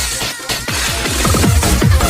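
Fast electronic dance music from a DJ mix with a heavy, rapid kick drum. The kick drops out for under a second at the start, leaving the synths, then comes back.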